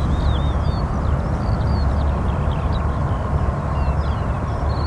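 Antonov An-12's four Ivchenko AI-20 turboprop engines running, a steady deep rumble with a faint hum in it, while small birds chirp high above it.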